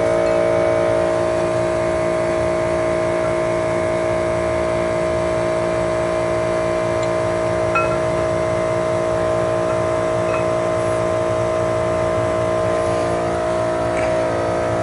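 A steady machine hum of constant pitch, with a few faint light ticks.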